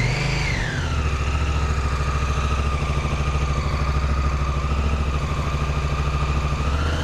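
Honda Africa Twin CRF1000L's parallel-twin engine running on its center stand, warming up the engine and chain. About a second in, the revs fall and settle into a steady idle, with a steady whine over the low engine hum.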